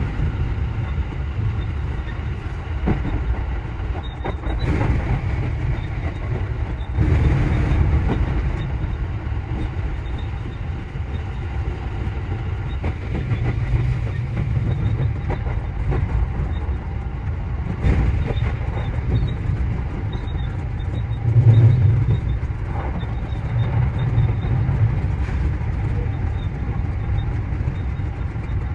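JR Central 315 series electric train running along the track: a steady low rumble of wheels on rail, broken by several sharp clicks.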